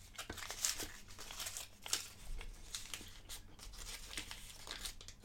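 Crinkling of a chocolate bar's wrapper being handled, a run of small irregular crackles.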